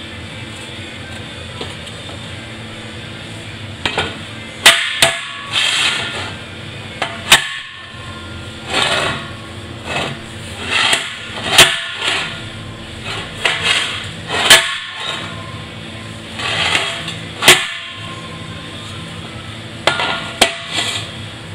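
Hammer blows on a steel wheel rim as a steel widening band is knocked into the cut wheel: sharp metallic strikes with a ringing tail, mixed with duller knocks, irregularly spaced from about four seconds in. A steady workshop hum runs underneath.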